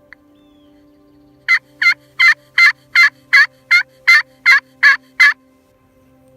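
Hen turkey yelps worked on a slate call as a calling sequence: eleven loud, evenly spaced yelps, about three a second, starting about a second and a half in.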